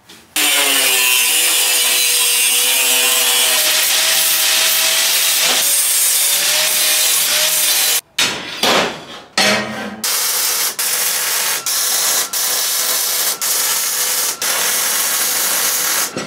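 A high-speed abrasive power tool grinding or cutting steel for several seconds, its whine sagging and rising under load. A few knocks follow, then a MIG welder's steady crackling hiss in short runs with brief breaks between them.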